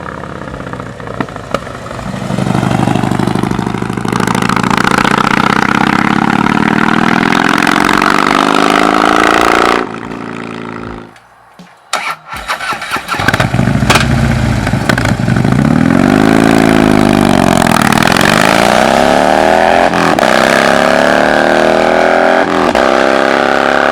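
V-twin exhaust of a Harley-Davidson touring motorcycle fitted with KessTech ESM2 slip-on mufflers, running and revving, its pitch rising and falling. The sound breaks off for a moment just after ten seconds, then comes back.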